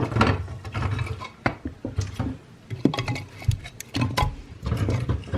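Split firewood and birch bark being stacked in a fireplace: a string of light knocks and scrapes of wood on wood.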